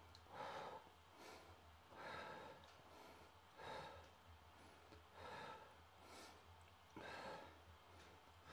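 A man breathing audibly while holding a deep hip stretch: faint, short breaths, about one a second.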